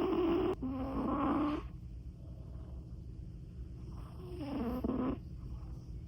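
Persian cat snoring: rasping, buzzing breaths about a second long, two back to back at the start and another about four seconds in.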